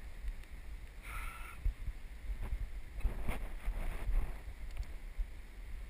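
Low, steady rumble of wind and handling on a body-worn action camera's microphone, with a few faint rustles and ticks.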